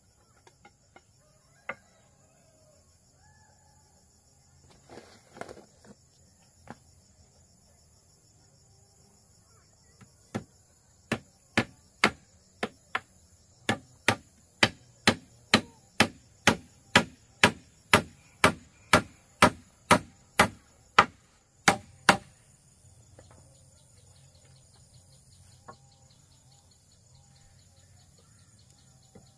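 A hand tool striking wood in a steady run of about two dozen sharp blows, about two a second, growing louder as they go, with a few lighter knocks before it. A steady chirring of crickets or other insects runs underneath.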